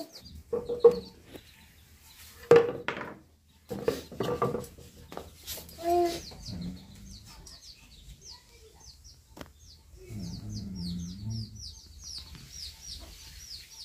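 Domestic chickens clucking now and then, with small birds chirping rapidly in the background: a run of quick, high, downward-sliding chirps, several a second, through the second half.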